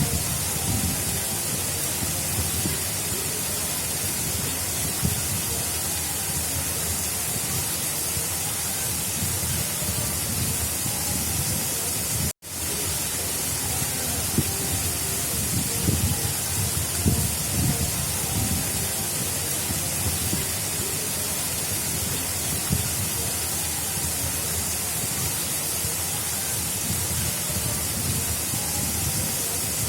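Water of an artificial river channel flowing: a steady rushing with a flickering low churn underneath. It cuts out for a split second about twelve seconds in, then resumes unchanged.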